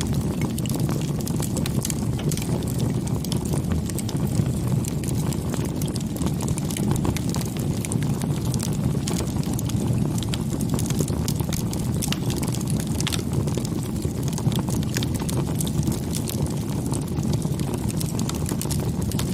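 Wood campfire burning, with frequent sharp crackles and pops over a steady low rumble.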